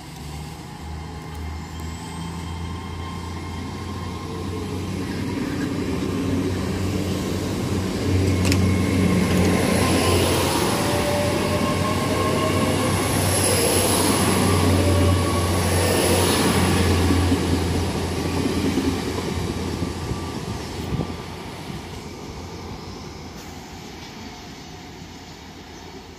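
Great Western Railway Class 800 intercity train passing at a platform, its underfloor diesel engines humming under the rush of wheels on rail. It grows louder as it approaches, is loudest about halfway through, and fades as it draws away.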